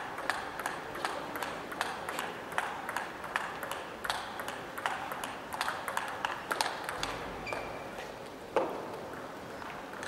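Table tennis warm-up rally: the ball clicking on the bats and the table a few times a second, over the steady background of a large sports hall. A louder single knock comes near the end.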